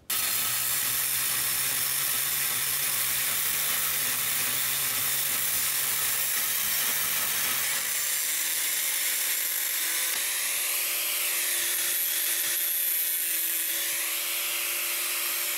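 Angle grinder cutting the corner off a steel mount plate: a loud, continuous cutting hiss that starts abruptly. Its motor note steps up to a higher pitch about halfway through and wavers near the end as the load on the wheel changes.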